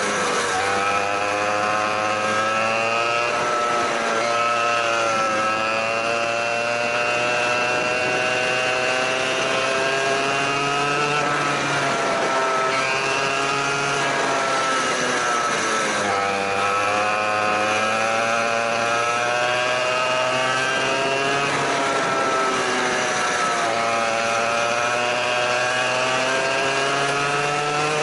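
A 100cc go-kart engine heard from on board while lapping: its note climbs steadily along each straight and drops sharply as the throttle is lifted for a corner, roughly every four to seven seconds.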